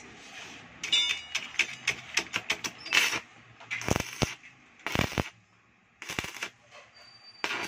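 Inverter stick welder test-fired after a power-supply repair: the electrode crackles in a quick run of sharp snaps, then a few short arc bursts as it is struck and breaks off.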